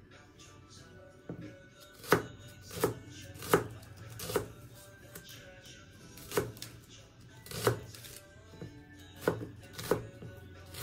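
Chef's knife slicing shallots on a plastic cutting board: about ten sharp, irregularly spaced knocks of the blade striking the board, over soft background music.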